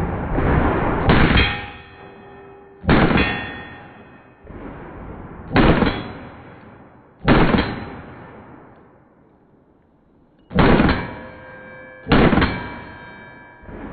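Six pistol shots from a Glock 19, one to three seconds apart, each followed by the ringing clang of the steel sign target being hit.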